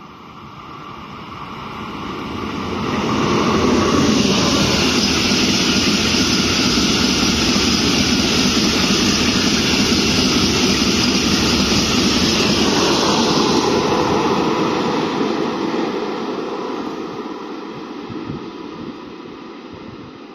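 Freight train of covered hopper wagons, hauled by an E652 electric and a G2000 diesel locomotive, passing through the station without stopping. The sound builds as the locomotives approach, holds loud and steady while the wagons roll by, and fades from about 13 seconds in.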